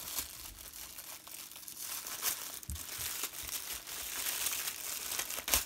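Clear plastic wrap crinkling as a rolled diamond-painting canvas in its plastic sleeve is handled, with scattered sharp crackles and the loudest crackle near the end.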